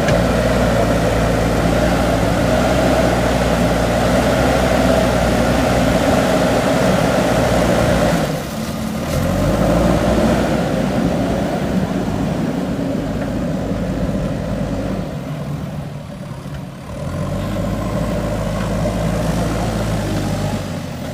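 JCB 3DX backhoe loader's diesel engine running under load. It eases off briefly about eight seconds in and again around fifteen seconds, picking back up each time.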